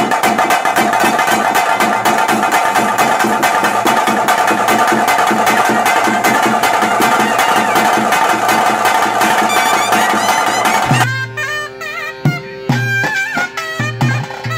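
Traditional ritual music: fast, loud drumming over a steady reedy drone. About eleven seconds in the drumming drops away and a reed pipe plays a stepping melody over a held drone note, with a few scattered drum beats.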